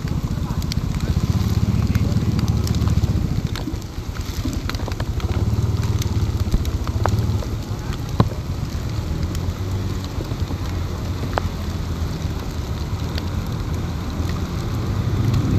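Heavy rain falling, with scattered drops ticking close by, over the low, fast-pulsing running of a motor scooter's engine.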